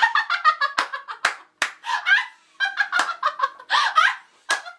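A woman laughing hard in rapid bursts, broken by several sharp hand claps.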